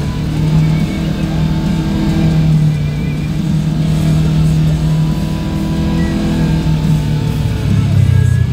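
Guitar-driven rock music playing over the steady running of an off-road 4x4's engine.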